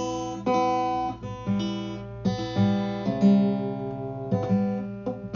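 Acoustic guitar played by hand: an unhurried run of strummed chords and plucked notes, a new stroke about every half second to a second, each left to ring out.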